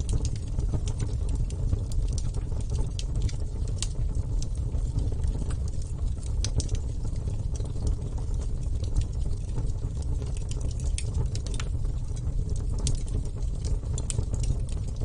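Wood fire burning, with irregular sharp crackles and pops over a steady low rumble.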